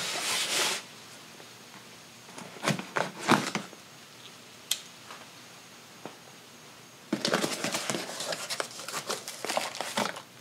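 A cardboard parts box being cut open and unpacked: a dull blade scrapes through the tape and cardboard, followed by a few knocks and rustles. From about seven seconds in, plastic wrapping crinkles steadily as the bagged parts are lifted out.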